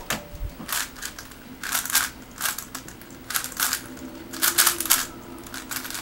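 Dayan + MF8 mini 4x4 speed cube being turned fast by hand: irregular bursts of quick plastic clicking and rattling as the layers snap round, with a soft thump about half a second in.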